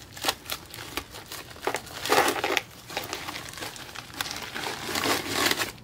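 Plastic packaging bag of hardware crinkling as it is pulled open and handled, in irregular crackles that are loudest about two seconds in and again near the end.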